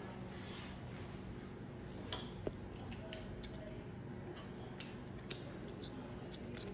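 Small sharp clicks of metal dental hand instruments against an implant crown as Teflon tape is pushed into the screw access hole, a few times about two seconds in and again near five seconds, over a faint steady low hum.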